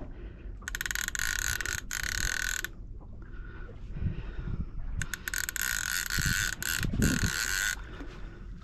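Fishing reel ratchet clicking rapidly in two bursts of about two seconds each, while a hooked tope is played on a bent boat rod.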